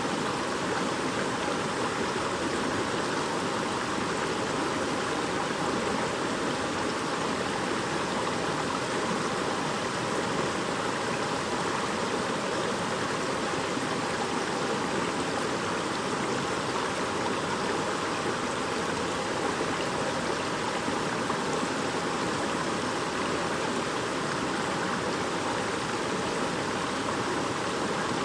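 Shallow stream babbling steadily over stones, a continuous even rush of water.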